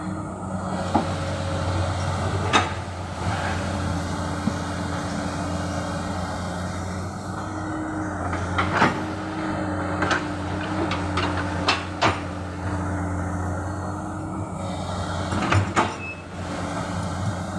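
Komatsu hydraulic excavator's diesel engine running steadily, with sharp metallic clunks about eight times as it works.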